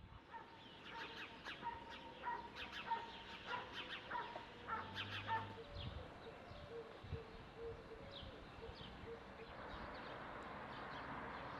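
Small birds chirping and tweeting in short quick calls over a quiet outdoor background, with a soft hiss coming in near the end.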